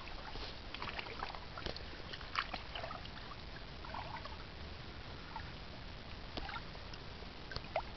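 Light splashing of shallow water as a hand holds a black bass under the surface to release it, with a few small, irregular splashes.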